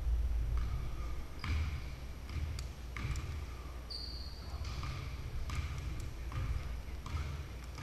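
Basketballs bouncing on a hardwood gym floor in a large echoing hall, a thud every second or so. A short high squeak comes about four seconds in.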